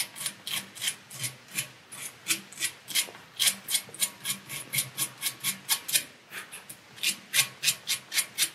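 Sandpaper rubbing back and forth on the bare electrode pin of a CO2 laser tube in short, even strokes, about four a second. The pin is being sanded gently to clear oxidation until it shows a shiny surface for a good contact.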